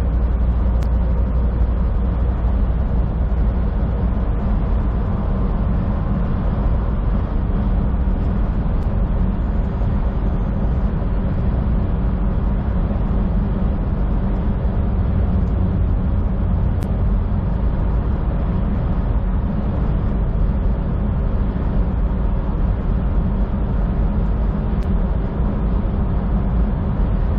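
Semi truck cruising on a highway, heard from inside the cab: a steady low drone of engine and tyres on the road, with a few faint steady tones over it.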